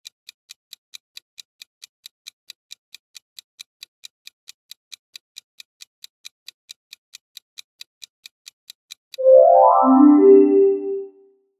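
Quiz countdown timer ticking steadily, about four ticks a second. About nine seconds in the ticking stops and a short, loud synthesizer sound of a couple of notes marks the timer running out.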